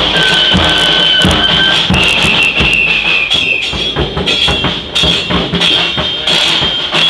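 Bombos (large bass drums) and cymbals played together inside a train carriage: a steady beat of drum strokes with cymbal crashes, and high held tones over the top for much of the time.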